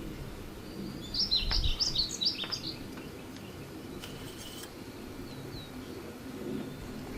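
A songbird sings a short burst of quick high chirps about a second in, lasting about a second and a half, with a brief fainter call a couple of seconds later, over a steady low background rumble.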